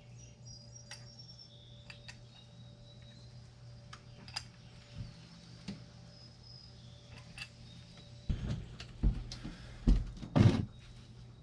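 Faint metal clicks of an adjustable wrench turning hydraulic hose fittings into a steering helm's ports. About eight seconds in come several louder knocks and thumps, the loudest near the end.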